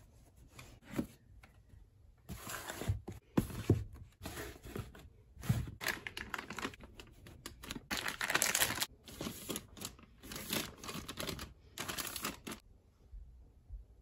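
Plastic wrapping of Cottonelle flushable-wipes soft packs crinkling and rustling as they are handled, in irregular bursts for about ten seconds, with a few soft thumps in the first half. The crinkling stops about a second before the end.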